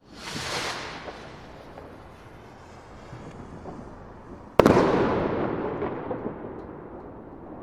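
Single firework rocket: it launches with a hissing whoosh, then about four and a half seconds later bursts with one sharp bang. The bang is the loudest sound and trails off into a long, fading rumble with scattered crackles.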